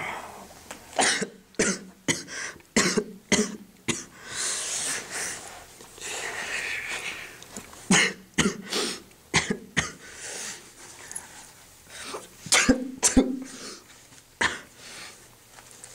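A boy coughing in repeated fits of short, harsh coughs, played as someone sick with a sore throat and flu, with breathy noise between the fits.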